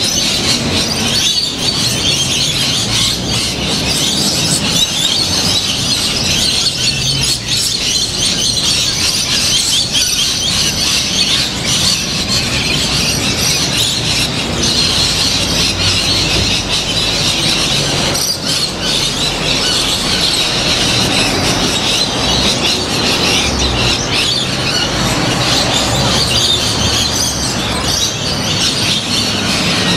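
A flock of rainbow lorikeets screeching and chattering nonstop, a dense mass of overlapping high-pitched calls.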